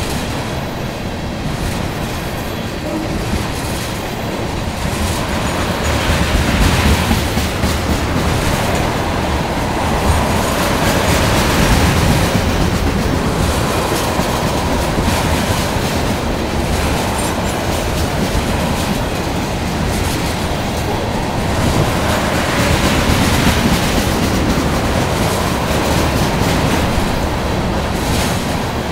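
Freight train of tank cars rolling past at close range: steady noise of steel wheels running on the rails.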